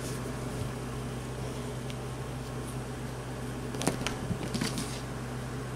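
Steady low electrical hum of a motor running in the room, with a couple of faint soft knocks about four seconds in as the cat lands on the bed.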